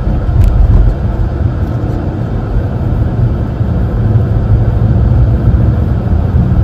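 Car driving along: steady low rumble of road and engine noise.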